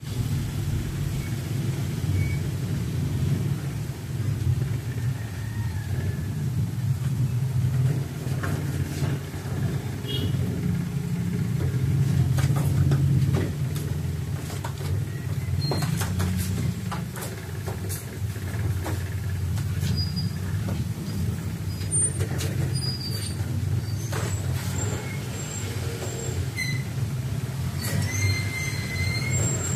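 Steady low rumble like motor traffic or an engine running, with scattered light clicks and taps and a few brief high chirps near the end.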